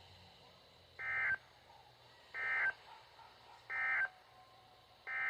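Emergency Alert System SAME data tones: three short, buzzy digital bursts a little over a second apart, the end-of-message code that closes the snow squall warning. About five seconds in, a longer burst begins: the header code of the next alert.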